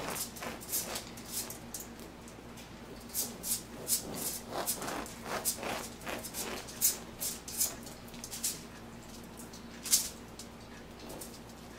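Bread knife sawing back and forth through the crisp crust of a round Italian loaf, a quick series of crunchy rasping strokes with a few short pauses between cuts.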